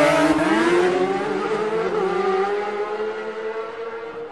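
Two racing motorcycles passing close at full throttle, their engine notes rising, then fading away into the distance.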